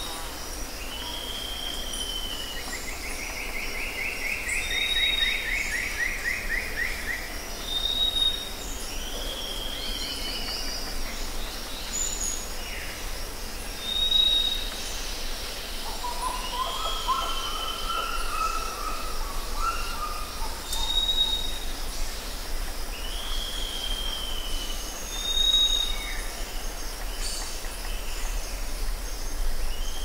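Several songbirds singing over a steady background hiss. A short high whistle repeats every few seconds, each followed by a curved down-slurred note. A fast trill runs for about four seconds a few seconds in, and a lower warbling phrase comes around the middle.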